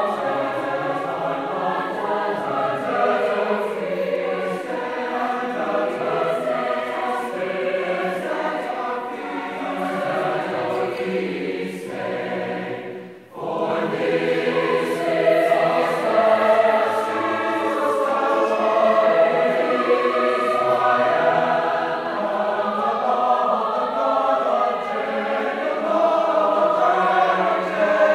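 Large mixed choir singing in harmony, with a brief break about halfway through before the singing resumes.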